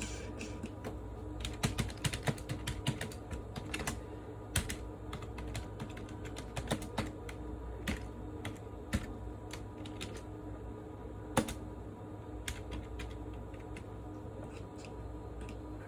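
Computer keyboard typing and clicking in irregular bursts: a quick run of keystrokes a couple of seconds in, then scattered single clicks, one noticeably louder. A steady low hum runs underneath.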